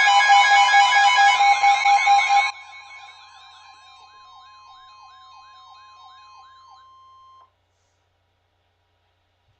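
Weather radio alert: a steady single-pitch alarm tone (the weather radio warning alarm) mixed with a warbling siren-like alert and beeping tones. The sound is loud for the first two and a half seconds, then drops sharply and carries on quieter. It cuts off abruptly about seven and a half seconds in.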